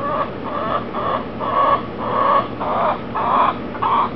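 A chicken squawking in a run of about eight loud calls, roughly two a second.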